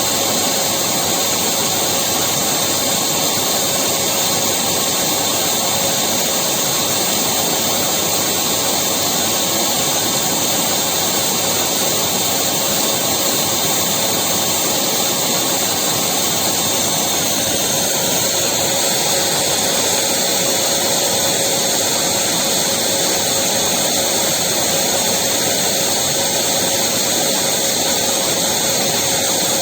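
Electric vacuum cleaner running steadily: a constant motor whine over a loud rushing hiss, which changes its colour slightly a little past halfway through.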